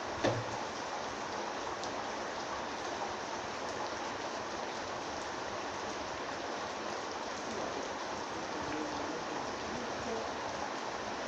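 Steady rain falling as an even hiss, with one sharp knock just after it begins.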